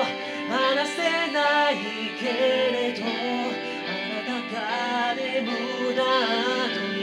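A voice singing a melody with wavering held notes over a backing track with guitar, most likely a karaoke demo sung through the MUZEN X3 handheld karaoke microphone's built-in speaker.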